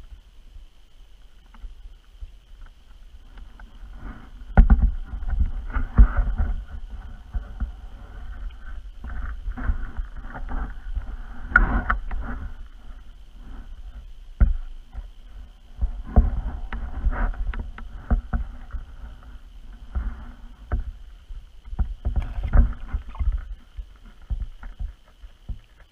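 Muffled water sloshing and irregular low knocks, coming in clusters a few seconds apart, picked up underwater beneath lake ice, with a faint steady high whine throughout.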